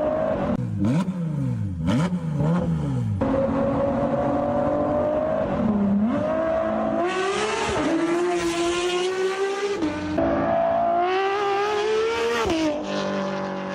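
High-revving sports-car engine, taken for a Porsche 911 GT3 RS: revved up and down several times at first, then accelerating hard, its pitch climbing and dropping sharply at quick upshifts about six, ten and twelve and a half seconds in. The near-instant shifts sound like a dual-clutch PDK gearbox rather than a manual.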